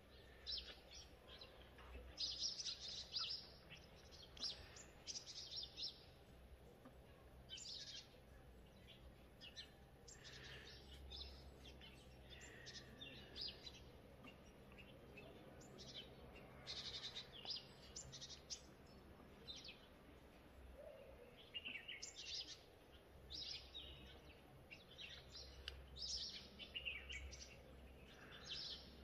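Small birds chirping and calling on and off: short high-pitched notes scattered through, over a quiet background.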